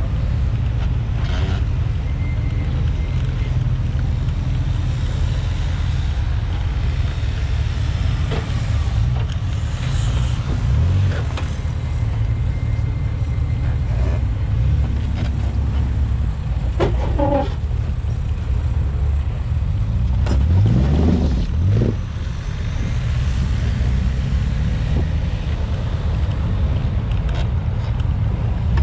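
Jeep Wrangler Rubicon engine running at low speed as the 4x4 crawls over an off-road obstacle course: a steady low rumble, with the engine revving up twice about twenty seconds in.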